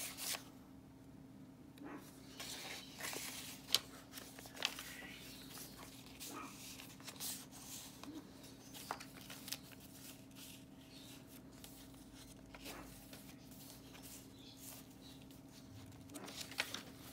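Paper rustling and page turns as the pages, tags and cards of a handmade junk journal are handled: scattered soft rustles and light clicks over a faint steady hum.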